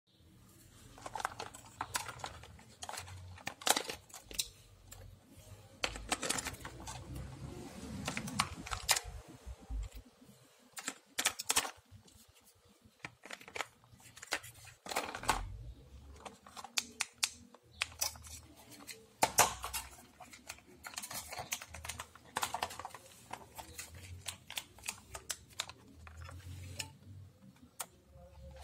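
Hands handling a plastic toy remote-control car and its remote: irregular clicks, taps and knocks of hard plastic.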